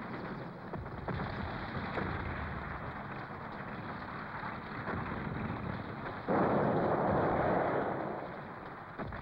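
Film battle soundtrack: a continuous rumbling din of combat with a few sharp cracks, and a sudden loud explosion about six seconds in that dies away over a couple of seconds.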